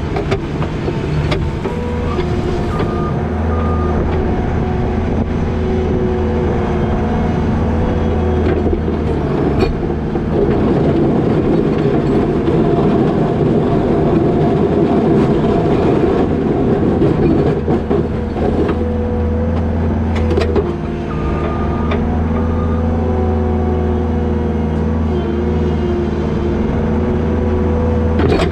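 New Holland L220 skid steer's diesel engine running steadily, working harder for about ten seconds in the middle while plowing wet snow with a box plow, then easing back.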